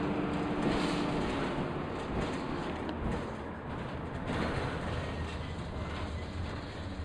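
Dennis Dart bus heard from inside the saloon while under way: engine running with steady road rumble and the noise of the body and fittings.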